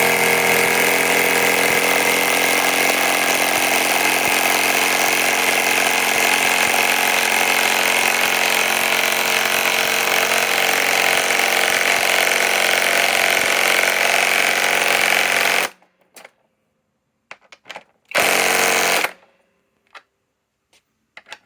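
Hercules compact cordless impact wrench hammering without a break for about sixteen seconds, then stopping; a second short burst of hammering follows a couple of seconds later.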